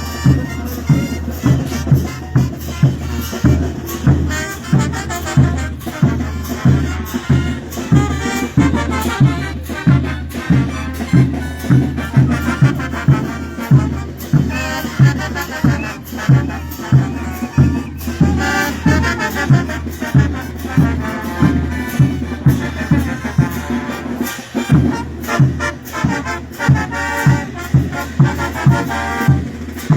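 Bolivian brass band playing a festive tune: brass melody over a steady, regular bass-drum beat with cymbals.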